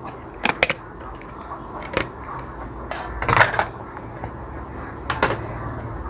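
Scattered clicks and small knocks of hand tools and plastic phone parts being handled while a smartphone is opened up, with a short run of rattling clicks about three and a half seconds in.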